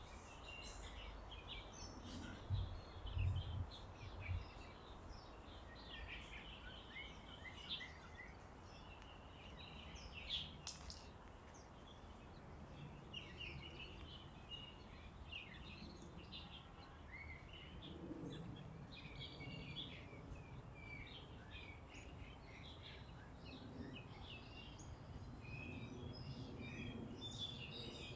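Many small birds chirping and calling in quick, overlapping short notes over a low outdoor rumble, with a few dull low thumps a few seconds in.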